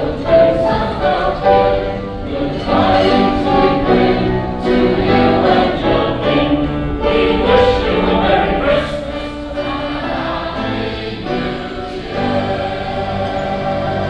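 An amateur choir singing together, holding sustained notes that change in steps.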